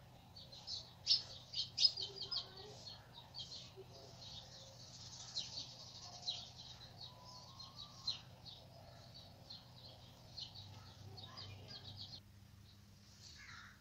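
Small birds chirping rapidly in the background, many short high chirps in quick succession that thin out near the end, over a steady low hum.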